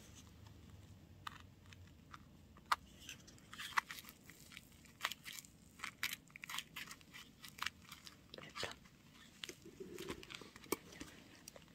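Taped paper squishy being handled and pressed shut by hand, giving faint, irregular crinkles and small clicks of paper and packing tape.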